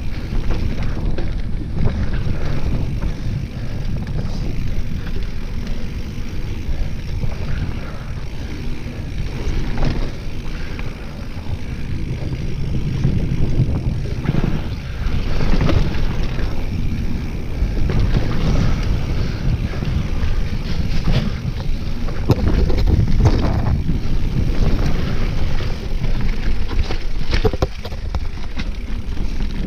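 Mountain bike riding fast down a dirt singletrack: heavy wind buffeting on the microphone over the rumble of tyres on dirt, with scattered knocks and rattles from the bike as it hits bumps.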